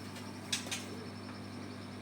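A caged songbird gives one short, sharp double chirp about half a second in, over a steady low hum.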